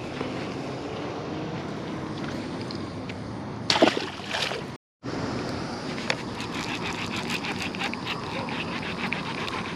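Water splashing and sloshing, with a louder splash a little under four seconds in. The sound drops out completely for a moment just before five seconds, and after that a run of short, light clicks sits over the water noise.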